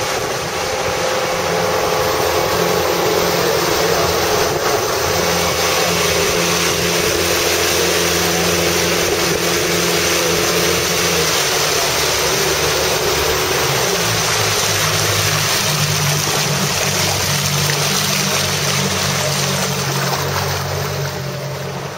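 Small motorboat's engine running at speed, with the rush of water and spray along the hull. The engine note shifts about halfway through, and the level eases slightly near the end.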